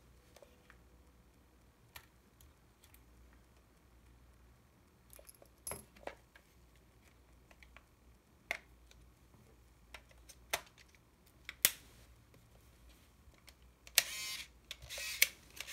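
Several sharp clicks and taps as the Kyocera Slim T (Yashica T4) compact film camera is handled. About 14 s in, its lens motor whirs for about a second and a half as the camera is switched on, the switch contacts now cleaned and making contact again.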